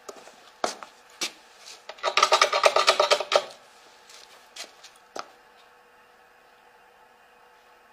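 A few sharp wooden knocks and clicks, then a wooden door creaking for about a second and a half, with a couple of fainter clicks after it over a low steady hum.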